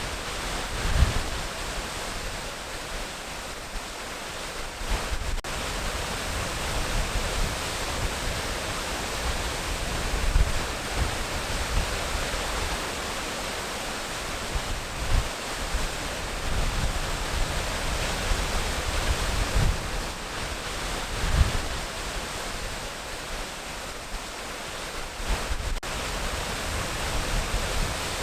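Waterfall: a steady rush of falling water, broken a few times by brief low thumps.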